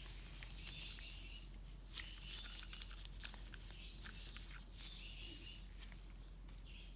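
Faint handling of a small plastic alcohol-ink dropper bottle by rubber-gloved hands: scattered soft clicks, with several short spells of high chirping squeaks.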